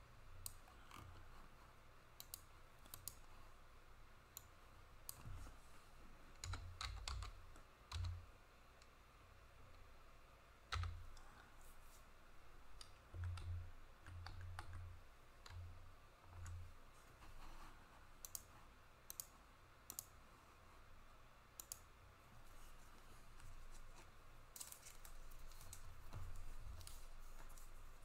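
Faint scattered clicks and light taps, with a run of dull low thumps in the first two-thirds.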